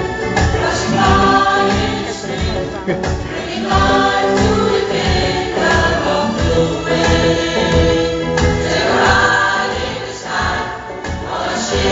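Pop choir singing in chorus, with a steady beat of low thumps under the voices.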